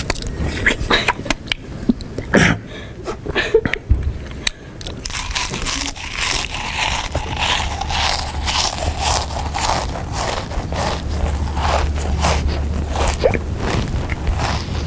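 A person chewing food loudly and crunchily, with a rapid, irregular run of sharp crunches and mouth noises. A low steady hum sets in about four seconds in.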